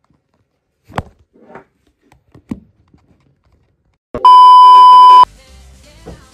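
A loud, steady test-tone beep of the kind played over TV colour bars, lasting about a second and cutting off suddenly. Before it come a few faint knocks of a phone camera being handled.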